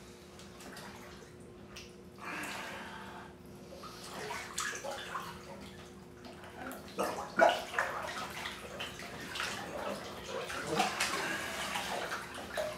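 Bathwater sloshing and splashing as a clothed person shifts and slides down in a full tub. The sloshing is soft at first, then turns into busier, louder splashing from about seven seconds in.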